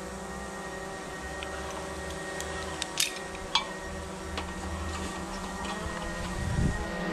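Aluminium ladder and steel carabiner being handled, giving a few light metallic clinks, the two sharpest about three seconds in and half a second apart, over a steady droning background.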